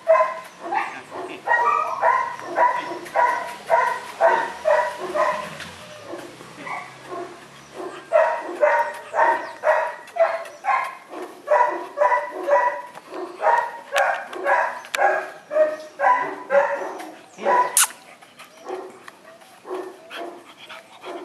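A dog barking over and over, about two barks a second, pausing briefly about a third of the way through and growing fainter near the end.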